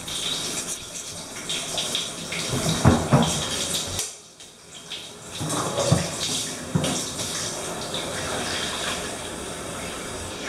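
Running water in a bathtub, a steady hiss, with a few dull knocks about three and six seconds in. The water sound drops away briefly about four seconds in.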